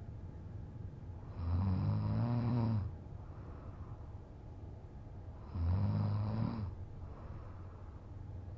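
A man, passed out drunk, snoring: two loud snores about four seconds apart, each lasting a little over a second, each a low, buzzing rattle.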